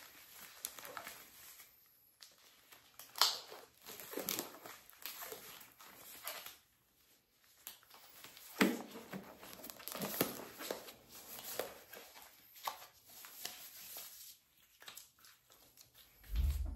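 Neoprene surgical gloves, worn double over a second pair, rubbed, stretched and worked over the fingers: irregular rubbery squeaks and crinkles. There is a brief low thump near the end.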